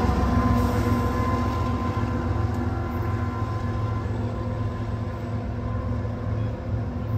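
BNSF diesel-electric freight locomotive running past and moving away, its steady low engine drone slowly fading.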